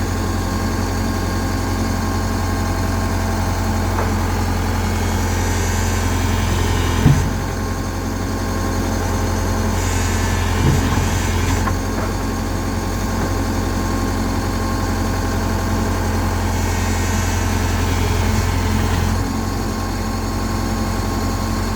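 Tata Hitachi excavator's diesel engine running steadily, with a sharp knock about seven seconds in and a lighter one about four seconds later.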